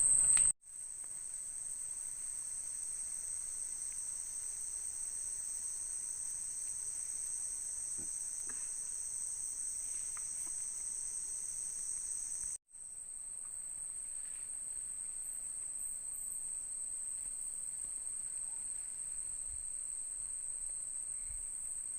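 Night-time rainforest insects, such as crickets, keeping up a steady, high-pitched continuous chirring drone. The sound cuts out briefly twice, near the start and about halfway through, and after the second break one of the two overlapping insect tones is missing.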